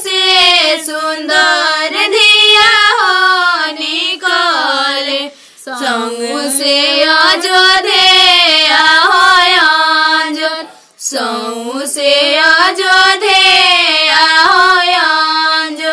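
A woman's high voice singing a kanyadan geet, the folk song sung while the bride is given away, in long held phrases with two short breaks about five and eleven seconds in.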